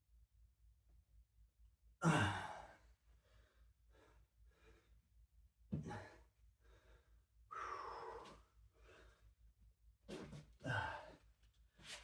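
A person breathing hard between workout sets. A loud sighing exhale comes about two seconds in, followed by a run of short, quick breaths and several more heavy exhales later on.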